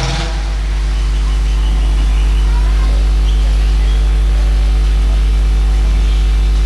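Steady low electrical hum with a buzz of evenly spaced overtones, as from mains hum in a microphone and sound-system chain. It swells over the first couple of seconds, then holds level.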